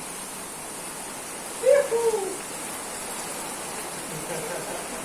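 Steady rain falling. About two seconds in, a person's short voiced cry, falling slightly in pitch, rises loudly over it.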